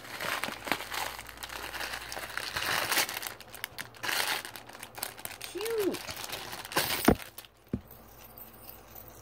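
Plastic packaging crinkling and rustling as a small mailer and a clear plastic bag are handled and opened. It dies down near the end, with a couple of sharp clicks as a metal chain necklace comes out of the bag.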